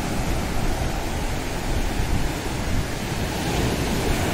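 Ocean surf breaking and washing up a sandy beach: a steady, even rush with no separate crashes standing out, and wind buffeting the microphone.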